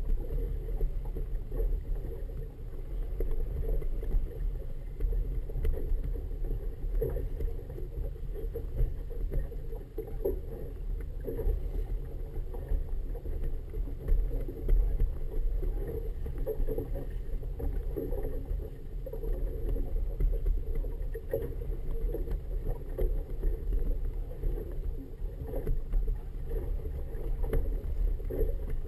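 Steady wind rumble on a GoPro in its waterproof housing aboard a moored boat, with choppy harbour water slapping the hull in an uneven wash.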